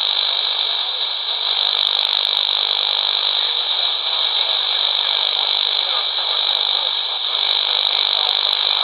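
AOR AR8000 handheld receiver tuned to 21.300 MHz upper sideband on the 15 m ham band, its speaker giving a steady hiss of band noise with a weak single-sideband voice faintly heard under it.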